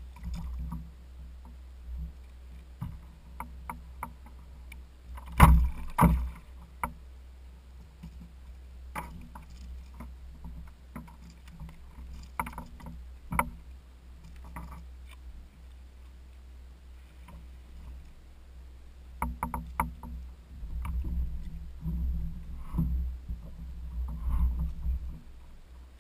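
Scattered knocks, clicks and rattles on a plastic fishing kayak's hull and gear as a caught flounder is handled and unhooked, over a low steady rumble. There are two heavy thumps about five seconds in, and a busier run of knocks and rattles over the last several seconds.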